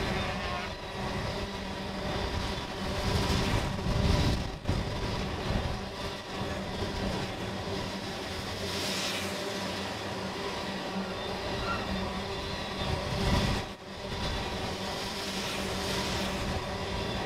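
A freight train of tank cars rolling past at speed: the steady rumble and clatter of steel wheels on the rails, swelling louder about four seconds in and again about three-quarters of the way through.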